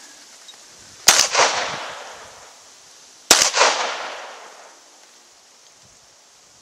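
Two shots from a semi-automatic pistol, about two seconds apart, each followed by an echoing tail that fades over about a second.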